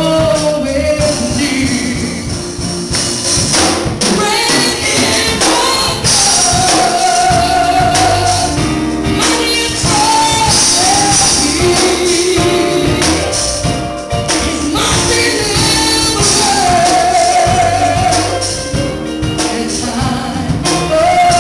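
A woman singing a gospel song through a microphone over instrumental accompaniment with a steady beat, holding long notes several times.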